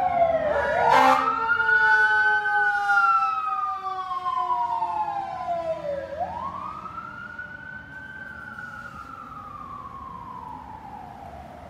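Emergency vehicle siren wailing in two slow rising-and-falling sweeps, growing fainter as it goes. A short sharp click about a second in.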